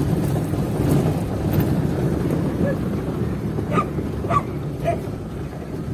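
Steady low rumble of a moving vehicle, with a dog barking three times about half a second apart a little past the middle.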